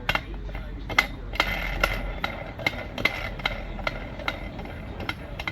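Metal clicking and clinking from hand-working the wheel-mounting tool on the tire changer, a fairly regular tick about two to three times a second.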